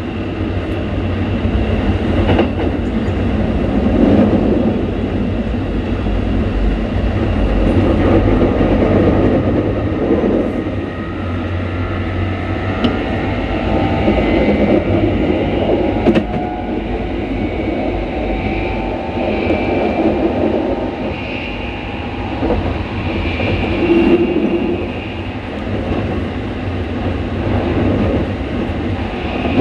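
Keikyu train set 1485 running, its traction motors giving a loud whine with a deep rumble over the rail noise. The motor sound is louder than Toyo-made motors and has the sound typical of Mitsubishi motors, so the uploader suspects the set now carries a Mitsubishi motor.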